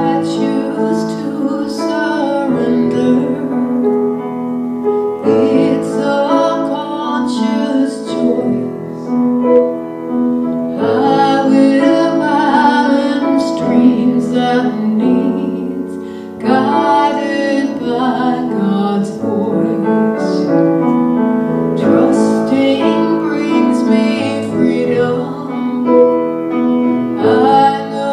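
A woman singing while she accompanies herself on a grand piano, in sung phrases a few seconds long over sustained piano chords.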